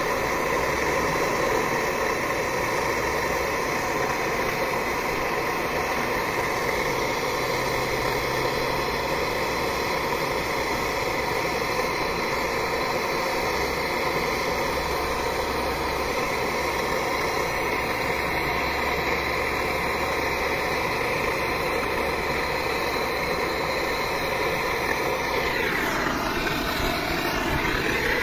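Handheld gas torch burning with a steady rushing hiss while it heats a copper pipe joint on an air-conditioner compressor for brazing. The sound wavers briefly near the end.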